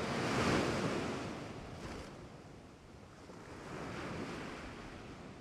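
Ocean waves washing in, two swells that rise and fall, the second softer, fading away.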